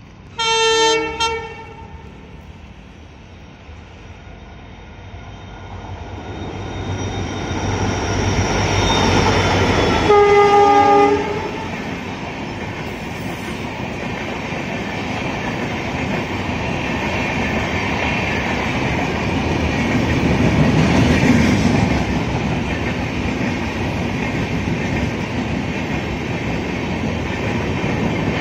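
Chandigarh–Madgaon Express train approaching and sounding its locomotive horn twice, a short blast about half a second in and another about ten seconds in. The rumble of the train builds up and its coaches then run past close by with a steady rush and clatter of wheels on rail.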